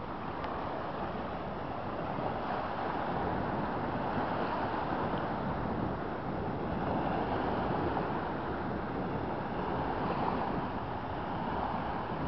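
Small waves washing and splashing onto a sandy riverbank, coming in surges every few seconds, with wind noise on the microphone.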